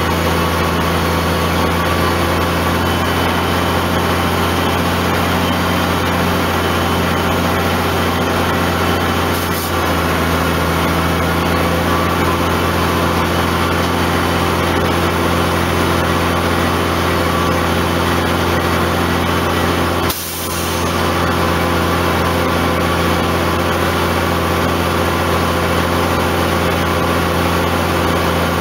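Heavy diesel truck engine running at a steady speed close by: the bed truck pulling the spun-out cement bulker. There is a short click and a brief drop in level about twenty seconds in.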